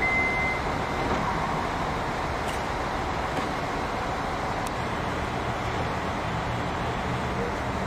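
Steady noise of a Lastochka electric multiple-unit train standing at a station, opening with the end of a single high, steady door-warning beep that stops about half a second in.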